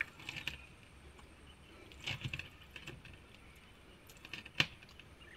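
Light clinks and knocks of clay terracotta roof tiles being handled, a few short separate clicks with the sharpest about four and a half seconds in.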